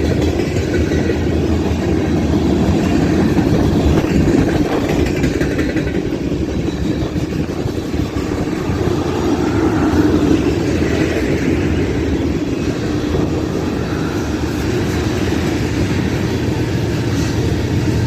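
Steady rumble and clatter of a long freight train's cars rolling past on the rails.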